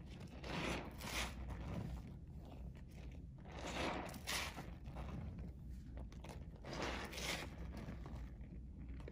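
Hand squeezing and kneading water-soaked pink soap gone to foamy mush, in wet, crackly squishes. They come in irregular bursts, some single and some in quick runs.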